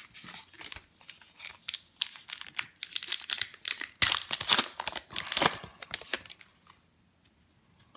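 Plastic wrapper of a Topps Heritage baseball card pack being torn open and crinkled by hand as the cards are pulled out; the crinkling is loudest a little past the middle and stops about six seconds in.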